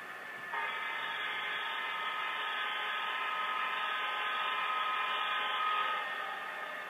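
HO scale model diesel locomotive's sound decoder sounding its multi-tone horn in one long blast, starting abruptly about half a second in and cutting off near the end, over the steady running sound of the locomotive.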